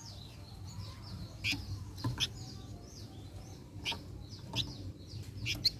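A flamboyan songbird chattering in quick, short high notes, broken by sharp, louder chip calls about seven times, over a low steady hum.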